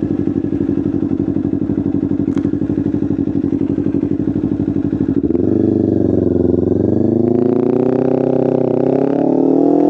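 Kawasaki Ninja 500's parallel-twin engine running at low revs with a pulsing beat; about five seconds in the note smooths out and rises steadily as the bike accelerates.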